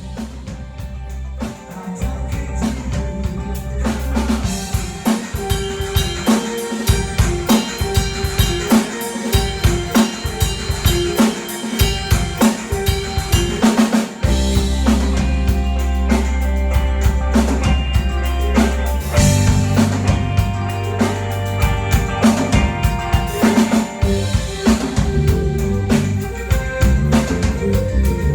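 A band playing live, with a drum kit to the fore: steady bass drum and snare hits over a bass line holding long low notes and sustained chords. The music builds in the first couple of seconds and then keeps up a regular beat.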